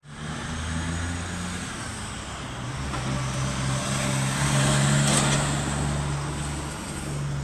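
Harley-Davidson Ultra Classic's V-twin engine idling steadily, growing louder for a second or two around the middle.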